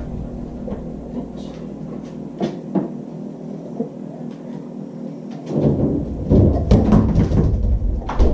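Knocks and clicks of a refrigerator door and its contents being handled, then a few seconds of heavy low thumping and rumbling near the end.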